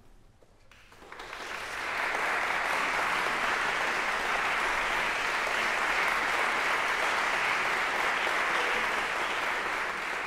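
Audience applauding, breaking out about a second in and swelling quickly to steady clapping.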